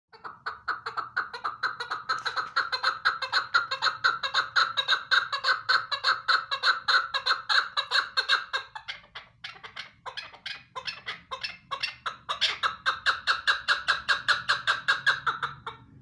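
Female chukar partridge calling a fast, even series of short clucking notes, about five a second. About nine seconds in the series breaks into scattered, uneven notes, then the fast run resumes and stops abruptly at the end.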